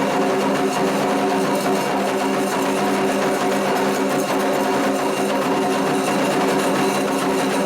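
Music built on a steady held chord with a fast, even flutter running through it.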